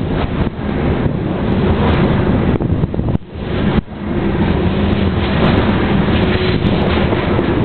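BNSF covered hopper cars of a grain train rolling past close by: a steady, loud rumbling of steel wheels on the rails, with wind noise on the microphone. The noise dips briefly a little after three seconds in.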